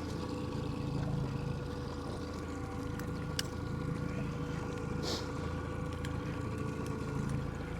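Boat motor running steadily while trolling, a constant low hum, with a few sharp clicks and a short hiss about five seconds in.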